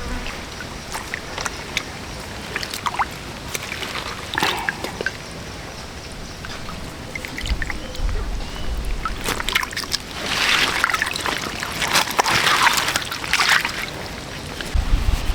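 Water sloshing and trickling with scattered drips, and a louder stretch of splashing from about ten to thirteen seconds in.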